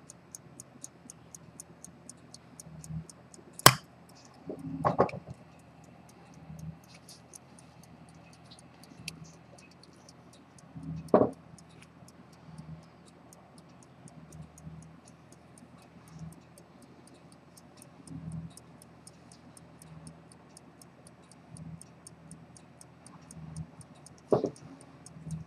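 Antique fusee-chain pocket watch ticking steadily at about five beats a second, with a few sharp knocks from handling or tools, the loudest about four seconds in.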